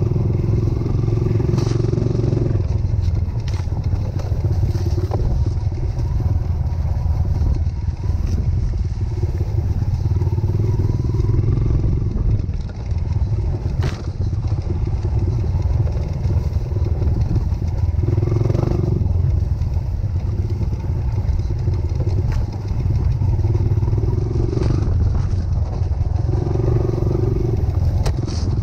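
Trail motorcycle engine running as the bike rides over rough ground, the throttle opening and easing off every few seconds, with scattered knocks and clatter from the trail.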